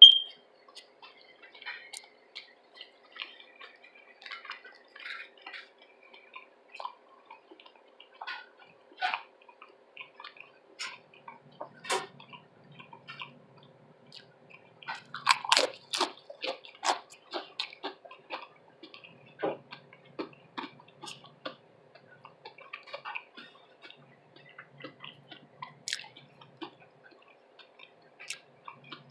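Close-up chewing and wet mouth sounds of someone eating a chilli cheese slaw veggie dog: irregular smacks, squelches and crunches, busiest about fifteen to seventeen seconds in. A brief sharp click comes right at the start.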